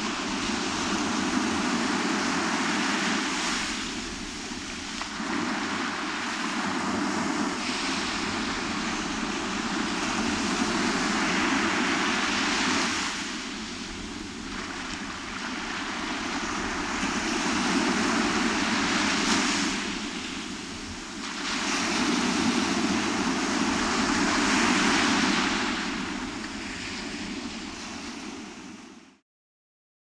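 Small surf breaking and washing up a sandy beach, swelling and easing every few seconds. It cuts off suddenly near the end.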